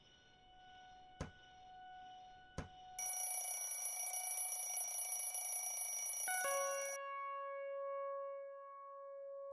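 Sharp hammer taps about every second and a half, then a mechanical alarm clock bell rings loudly for about four seconds. A thud near the end stops it, leaving a steady ringing tone that lingers.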